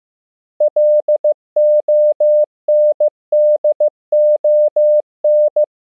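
Morse code sent as a pure electronic tone of about 600 Hz at 15 words per minute, keyed in dots and dashes. The sequence spells the world capital LONDON (.-.. --- -. -.. --- -.).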